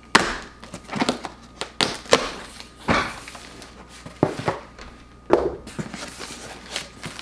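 Cardboard shipping box being opened and unpacked by hand: irregular knocks, scrapes and rustles of cardboard and packaging.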